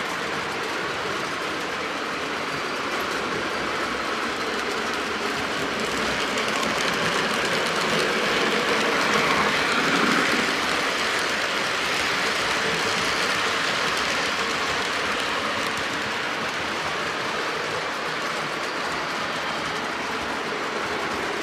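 Lionel O gauge model trains running on three-rail track, a steady sound of wheels and motors that grows louder as a freight train passes close by about ten seconds in.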